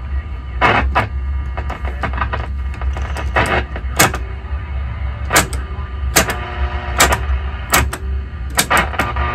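1939 Stewart Warner 5E1 tube radio's speaker giving a steady low hum with faint whistling tones and many irregular sharp crackles of static, as its push-button tuning is worked and no station is coming in.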